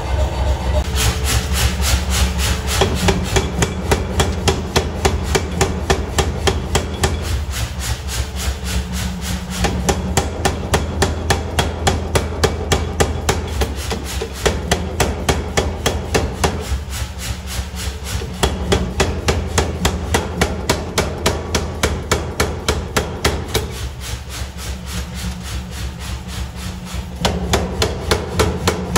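Mechanical power hammer striking red-hot steel in a fast, even rhythm of about four blows a second, over the steady hum of its running motor, as it spreads the blade of a broad hewing axe.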